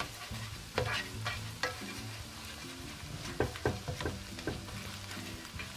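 Scrambled eggs frying in oil in a nonstick pan on low heat, with a spatula stirring and chopping them small: an irregular series of short scrapes and taps of the spatula against the pan over a soft sizzle.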